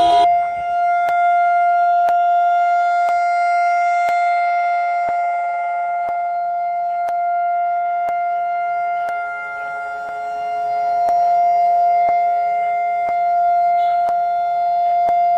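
Israeli nationwide remembrance siren sounding one long, steady tone that does not rise or fall in pitch and swells and dips slightly in loudness. It marks a moment of mourning. A faint tick about once a second runs underneath.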